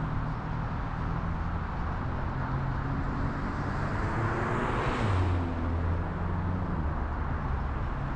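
A car driving: steady low engine hum and road noise. About five seconds in, a rush of noise swells up and drops in pitch.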